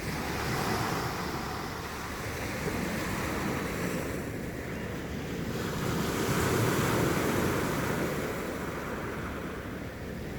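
Sea waves washing in, the rush of water swelling and ebbing twice.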